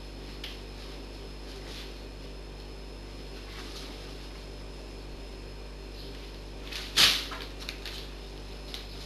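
Clear plastic packaging rustling and crinkling as a cat pushes into it from inside a cardboard box: a few faint rustles, then one loud crinkle about seven seconds in, followed by several smaller crackles.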